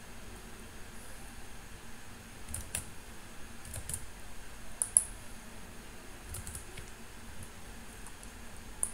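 Scattered clicks of a computer mouse and keyboard over quiet room tone, the sharpest about five seconds in and another near the end.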